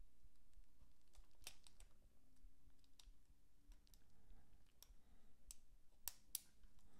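Faint, scattered clicks and taps of hard plastic parts being handled as an Atari 410 cassette recorder's tape mechanism is worked on with a small tool, with two sharper clicks close together near the end.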